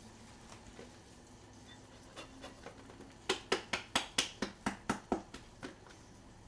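Red plastic squeeze bottle of chogochujang (vinegared red pepper paste) handled over the bowl: a quick, even run of about a dozen sharp clicks, about four a second, starting about halfway through and dying away.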